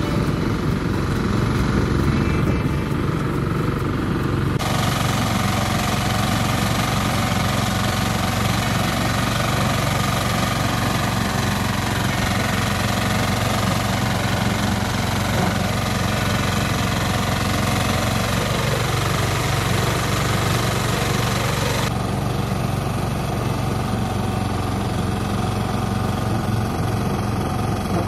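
Small engine of a portable rice thresher running steadily, its sound changing abruptly twice.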